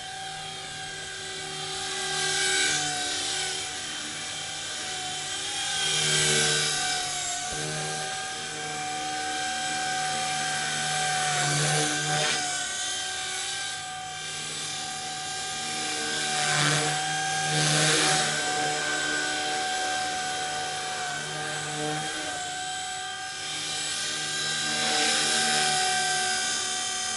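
Blade 180 CFX micro RC helicopter in flight: its electric motor and rotors give a continuous high whine with a steady tone. The sound swells louder and falls back every few seconds as the helicopter manoeuvres.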